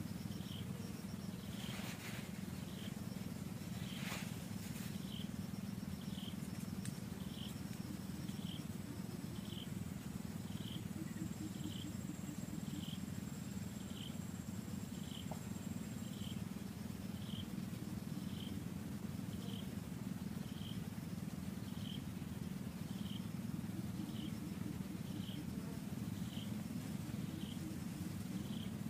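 Steady low rumble of forest ambience with a short, high chirp repeating about once a second, and a few faint clicks in the first seconds.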